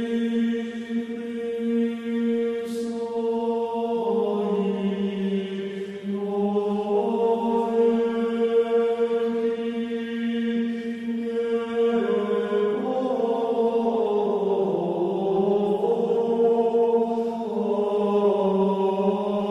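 Orthodox church chant: voices hold long notes over a steady lower drone, moving to a new pitch every few seconds.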